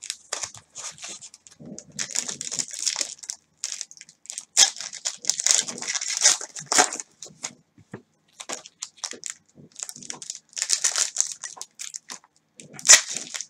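Foil trading-card pack wrappers being torn open and crinkled by gloved hands, in irregular crackling bursts, loudest around the middle and again near the end.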